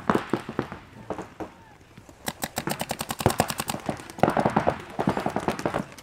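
Paintball markers firing during a point: scattered single shots at first, then fast strings of shots from about two seconds in, roughly a dozen a second.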